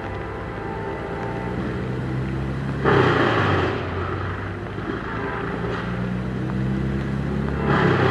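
Amtrak GE Genesis diesel locomotives approaching: a steady low engine drone whose pitch shifts slightly, with a sudden rush of noise about three seconds in and again near the end.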